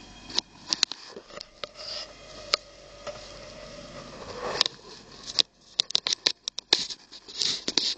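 Irregular sharp clicks, taps and short scrapes on a plastic enclosure, coming thicker and louder in the second half: handling noise as the camera knocks and rubs against the tub's plastic wall.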